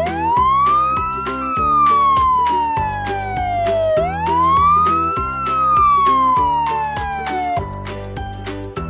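A siren sound effect wailing twice, each wail rising quickly and then falling slowly, over background music with a steady beat. The siren stops a little before the end, leaving the music.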